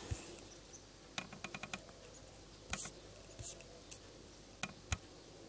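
Faint, scattered taps and clicks of fingers on a tablet's touchscreen, with a quick run of about six clicks a little over a second in and a few single clicks after.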